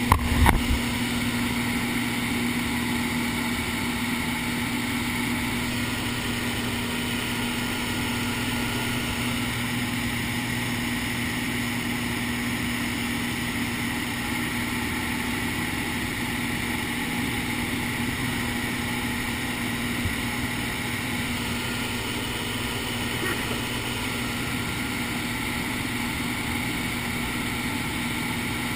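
Single-engine light aircraft's piston engine and propeller droning steadily, heard from inside the cabin in flight. There is a brief knock right at the start.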